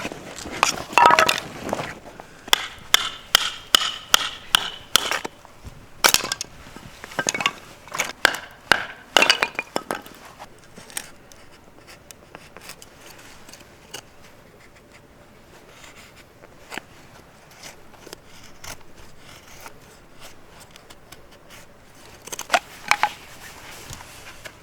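Metal cookware and utensils clinking and clattering as they are handled: a quick run of sharp knocks, some with a brief metallic ring, for about the first ten seconds, then quieter, with a few more clinks near the end.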